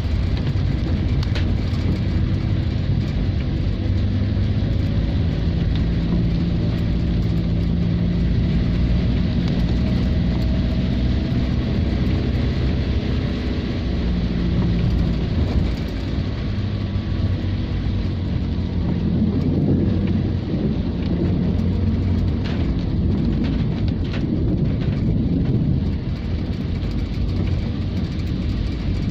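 Steady car engine and road noise heard from inside the cabin, with a low hum that shifts a little as the car moves, and rain on the car.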